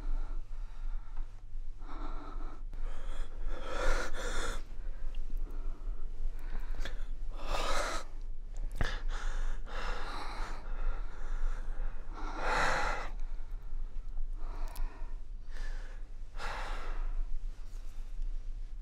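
A person breathing heavily, with about seven loud gasping breaths spaced two to three seconds apart.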